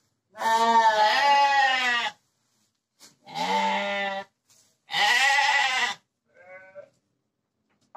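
Penned sheep and goats bleating: three long calls, then a fainter, shorter one near the end.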